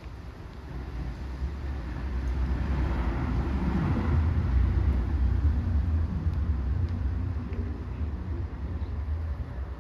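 A vehicle passing by, its low rumble swelling over a few seconds, peaking around the middle, then fading away.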